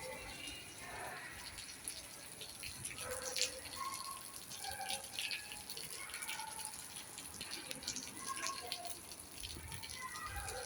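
Rain falling and running off, a steady watery hiss with many separate drips and splashes landing throughout.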